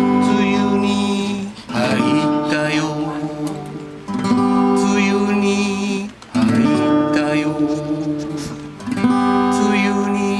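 Barclay acoustic guitar strummed, a new chord struck about every two seconds and left to ring.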